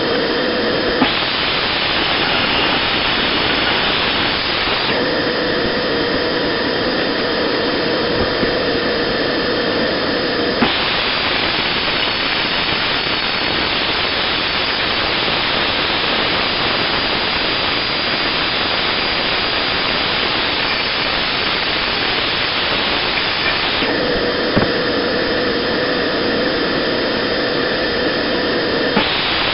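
Loud, steady machine noise. A steady hum changes three times into a broader, harsher hiss that lasts several seconds each time: about a second in, again at about ten seconds, and near the end.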